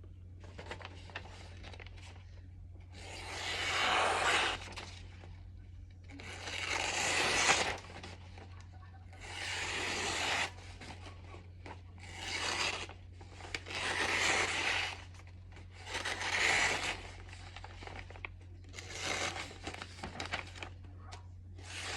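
80CrV2 steel knife blade slicing through paper in repeated strokes: about eight rasping swipes, each around a second long and a couple of seconds apart. A steady low electrical hum lies underneath.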